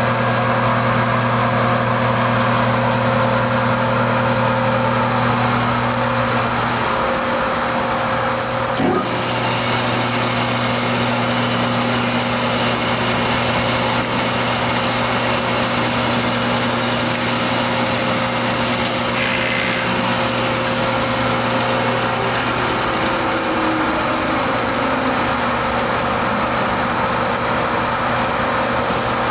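Hobart 1401 140-quart planetary mixer running with no load: a steady hum from the motor and gearbox, with one brief knock about nine seconds in.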